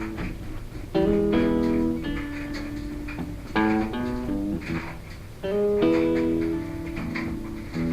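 Background music: an acoustic blues guitar playing chords, with fresh strummed chords struck about one, three and a half and five and a half seconds in. No singing yet.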